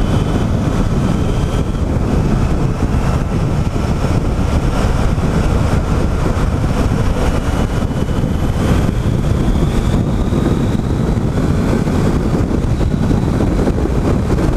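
Wind buffeting the microphone on a Triumph Tiger 800 XCA under way, with the three-cylinder engine's note faintly rising beneath it as the bike accelerates to highway speed.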